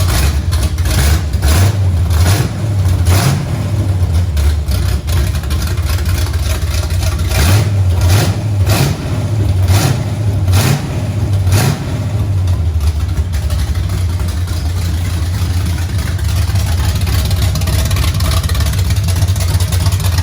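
Built 305 small-block V8 with a big race cam, running without its exhaust fitted: a loud, throaty lumpy idle with sharp pops and short revs through the first half, settling to a steadier rumble later.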